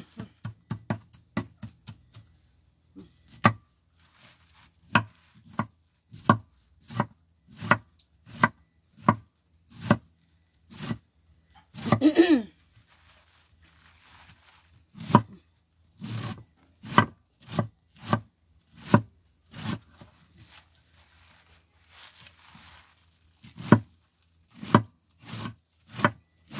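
Kitchen knife chopping vegetables on a cutting board: single cuts at a slow, steady pace of about one to one and a half a second, pausing twice along the way.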